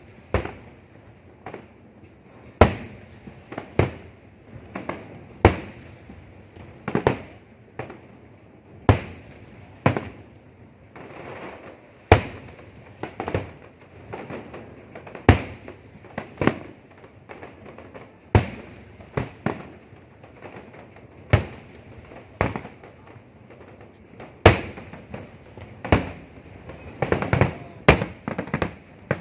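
Fireworks going off: a steady string of sharp bangs roughly one to two seconds apart, with denser crackling runs about halfway through and again near the end.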